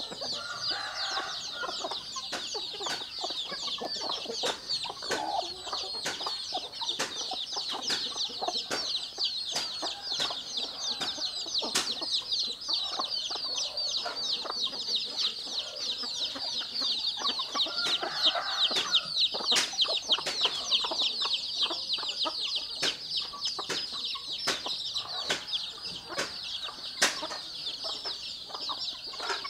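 A flock of chickens: many chicks peeping in a continuous, rapid high-pitched chorus, with hens clucking now and then, loudest about eighteen to nineteen seconds in. Scattered sharp taps sound throughout.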